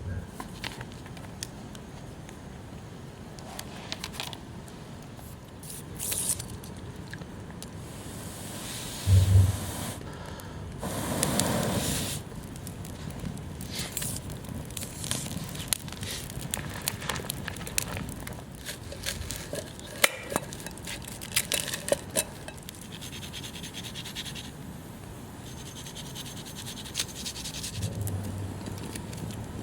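Hands-on campfire cooking work: scraping and crackling with many scattered sharp clicks, a short low thump about nine seconds in and a louder rustling swell around eleven to twelve seconds.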